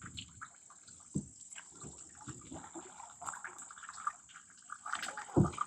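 Faint, irregular water splashing and dripping: small splashes and drips in shallow water.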